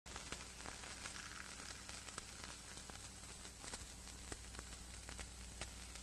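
Faint crackling hiss with scattered, irregular clicks over a steady low hum.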